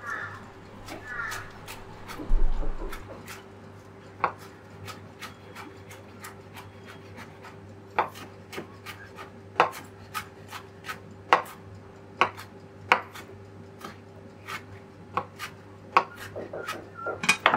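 Chef's knife chopping parsley on a wooden cutting board: sharp, irregular knocks of the blade on the board, roughly one a second, with a louder dull thump about two and a half seconds in.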